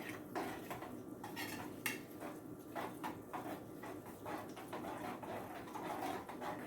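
Utensil clinking and scraping in a cooking pan, a series of irregular knocks with one sharper clink about two seconds in.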